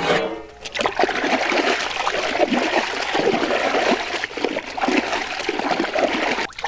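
Water splashing and sloshing as raw chicken pieces are washed by hand in a large metal pot of water.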